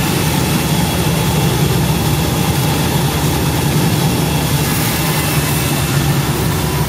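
CA-3000 bubble vegetable washing machine running with its recirculating water pump switched on: a steady, even motor hum over a constant hiss.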